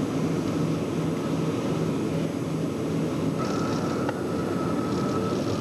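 Steady roar of a DC-9's rear-mounted jet engines and airflow heard inside the passenger cabin. A faint high steady tone joins about halfway through.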